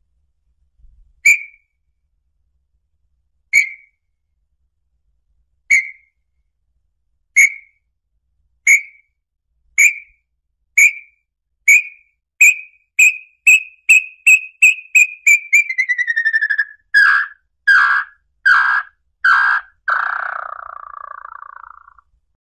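Small-billed tinamou song: clear whistled notes, at first about two seconds apart, that come faster and faster, then drop in pitch and end in a low, quick trill.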